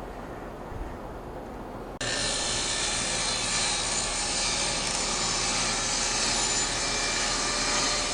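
A steady low fan hum, then about two seconds in a table saw starts running, with a loud, even noise that begins abruptly and holds steadily.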